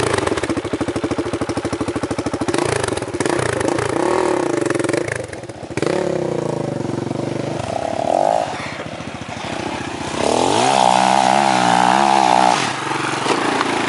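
Single-cylinder enduro motorcycle engine revving in bursts, its pitch rising and falling as the bike climbs a steep dirt hill. Near the end it makes its loudest pull, a high-revving run that wavers in pitch for about two seconds and then drops.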